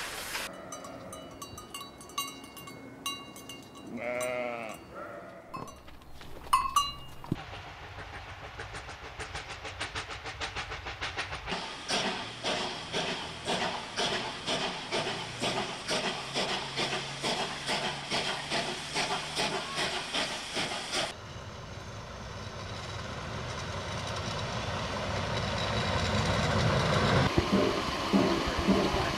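Steam locomotive working away with its exhaust chuffing steadily, about three beats a second, for some ten seconds. After that comes a rushing sound that grows louder, with beats again near the end. Before the chuffing there are scattered ticks and clicks and a short wavering call.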